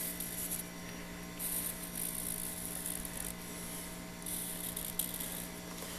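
Felt-tip marker drawn across the steel face of a double-bit axe head, a faint dry scratching in several short strokes, over a steady low hum.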